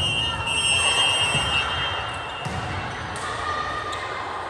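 Volleyball thumping on a hard gym floor as the server bounces it, then a sharper hit a little past three seconds, with the echo of a large sports hall. A steady high tone runs through the first two seconds or so.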